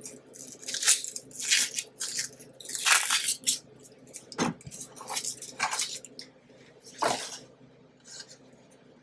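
Dry, papery onion skin crackling and rustling as it is peeled off an onion by hand, in a quick irregular run of small crackles with a couple of sharper ticks, dying away near the end.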